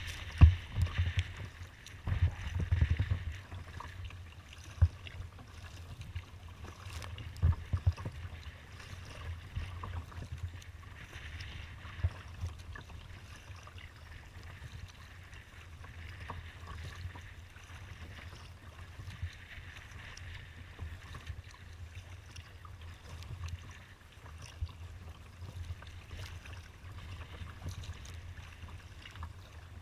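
Wind buffeting the microphone of a kayak's deck-mounted camera, a low rumble with gusty peaks that are loudest in the first few seconds, over water splashing and lapping against the hull in choppy water.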